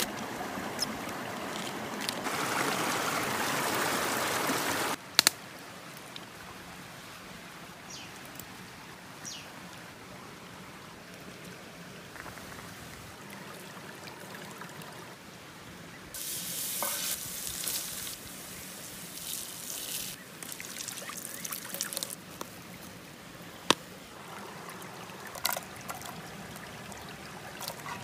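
Water pouring and trickling, with scattered clicks and knocks from hands handling fresh bamboo shoots. The loudest part is a steady rush of water about two seconds in that lasts about three seconds.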